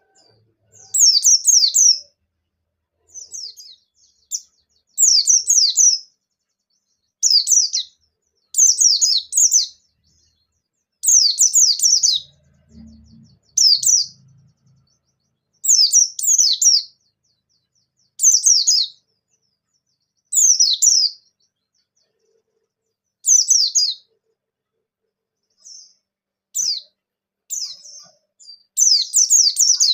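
A white-eye (pleci, of the type called bustomi) singing in rapid, high twittering phrases of about a second each, many quick falling notes packed together, repeated every second or two, with a longer unbroken run of song near the end. This is the vigorous wild-style song (gacor ngalas) used as a lure to set other white-eyes singing.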